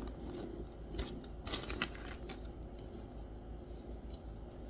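Faint, scattered clicks and crinkles of a snack bag and popcorn being handled.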